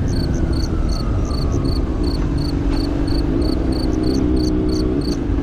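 Honda CBR600RR's inline-four engine running at a steady cruise, with wind rush on the helmet microphone. A quick, even series of short high chirps, about three a second, runs over it and stops near the end.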